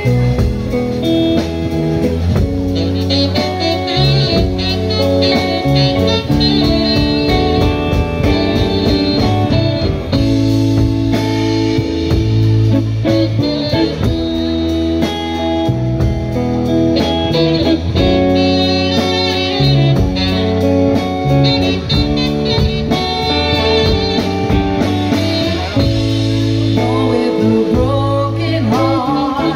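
Live blues-style band playing: electric guitar leads over electric bass and drums, and a woman's singing comes in near the end.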